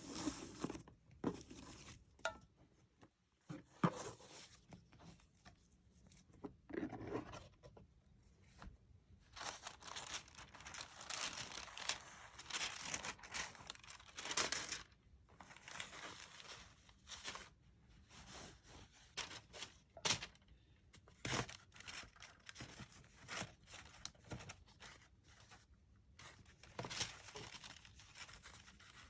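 Paper and box packaging handled during an unboxing: irregular rustling, crinkling and tearing, in stops and starts, with a few sharp taps.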